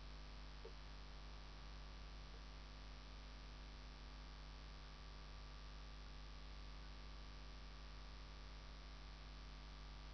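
Faint, steady electrical mains hum with background hiss: room tone of the recording microphone.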